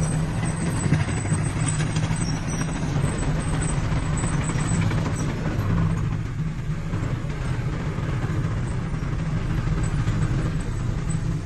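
Diesel engine of heavy earthmoving machinery running steadily, easing slightly about six seconds in.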